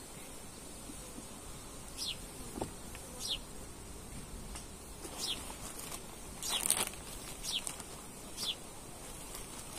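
Agitated honeybees buzzing around the open hives, one passing close with a falling buzz, over short high falling chirps that come about once a second.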